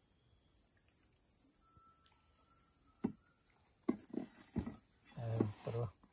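Steady high buzzing chorus of rainforest insects, with a couple of sharp knocks about three and four seconds in and short low voice sounds near the end.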